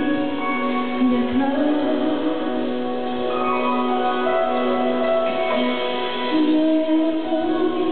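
A woman singing a slow song live into a microphone over instrumental accompaniment, with long held notes.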